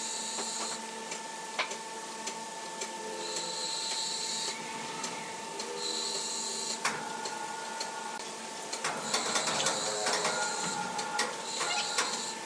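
Sawmill machinery running with a steady hum, broken by short high-pitched motor whines of about a second each, five times, as the hoist shifts a large log. Scattered knocks and clanks of the log and rigging, busiest in the second half.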